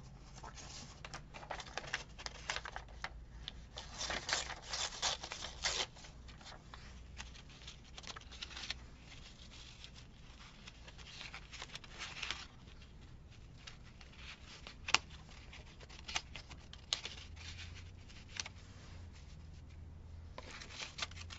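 Book pages being handled and torn: irregular bursts of paper rustling and ripping, with scattered light taps and clicks on the work table.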